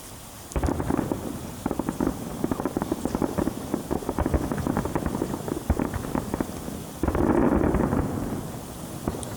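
Fireworks going off in a dense volley of rapid cracks and pops, with a louder, fuller burst about seven seconds in that fades away.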